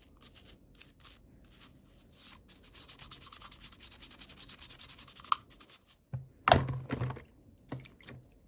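Hands scratching and rubbing on toy packaging in fast, even strokes for a few seconds, followed by a few louder knocks of handling near the end.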